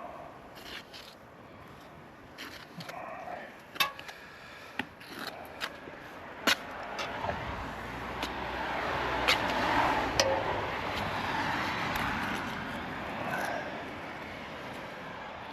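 A road vehicle passes, its noise swelling and fading over several seconds in the second half, with scattered sharp clicks and scrapes before it.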